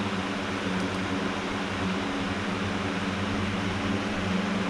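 Steady machine hum with an even hiss, a low droning tone that holds without change.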